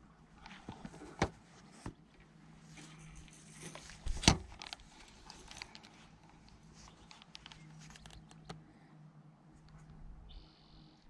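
Knocks and clicks from handling a spinning rod and reel, the loudest about four seconds in, with a run of smaller clicks after it. A short bird chirp near the end.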